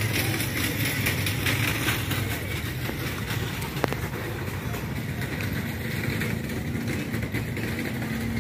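Motorboat engine running steadily over a low rumble, its hum growing clearer past the halfway point.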